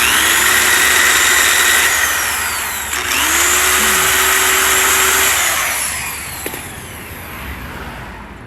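Power drill bit cutting into the plastic prongs of a radio bezel, drilling them out to separate the pieces. It runs in two bursts, each starting with a rising whine, with a short pause between them, and then winds down.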